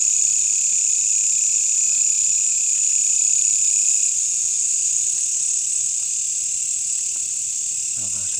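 Steady night chorus of insects such as crickets: a continuous high shrill trill that holds at an even level.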